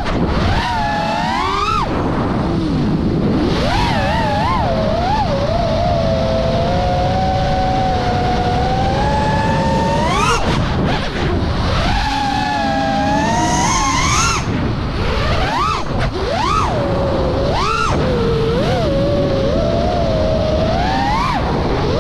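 FPV quadcopter's brushless motors whining, their pitch rising and falling constantly with the throttle, with a steep climb about ten seconds in, over a rush of wind noise.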